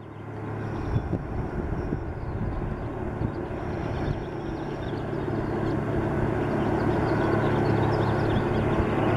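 Medical transport helicopter running with its rotors turning on the pad before takeoff: a steady low drone that grows gradually louder as it powers up.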